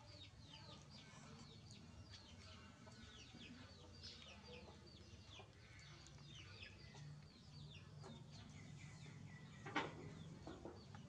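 Birds chirping in the background: quick, high, falling chirps, several a second, with a single knock near the end.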